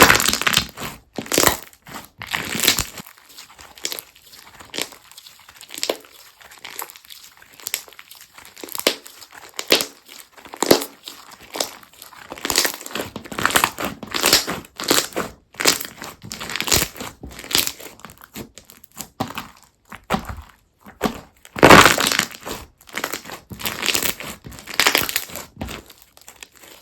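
Slime being squeezed, stretched and pressed by hand, making an irregular run of short crackles and pops. The loudest cluster comes about twenty-two seconds in.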